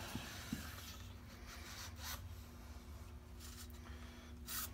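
A 30 caliber wire bore brush on a cleaning rod being pulled back through a rifle barrel, giving faint scraping, rubbing strokes several times, with the last stroke near the end the loudest.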